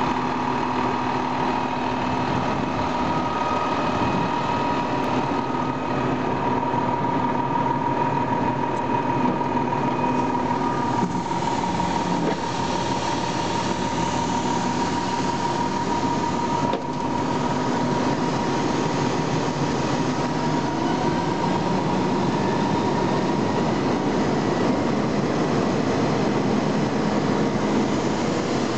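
Vactor 2100 combo sewer truck running with its jetter system working, its diesel engine and high-pressure water pump making a steady machinery noise with a steady whine. The sound shifts slightly about eleven seconds in and dips briefly a few seconds later.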